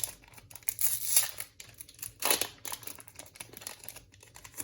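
Pokémon TCG booster pack wrapper crinkling and tearing as it is opened by hand, with louder rips about a second in and just past two seconds.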